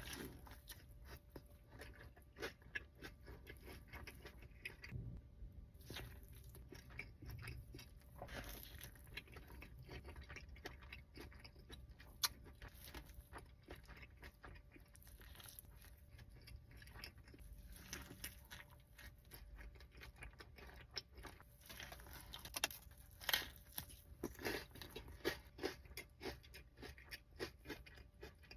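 Close-miked chewing and biting of food, with crunchy bites amid wet mouth sounds and louder bites near the end.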